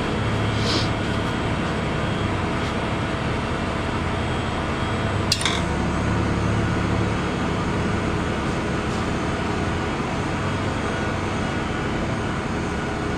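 Steady hum of a running engine or motor, with a faint metal clink under a second in and a sharper metallic clink about five seconds in.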